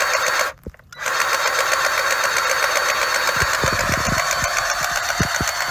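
Polyurethane crack-injection pump running steadily with a rapid, sewing-machine-like rattle while resin is pumped into a leaking concrete crack. The sound breaks off briefly about half a second in, and a few low knocks come in the second half.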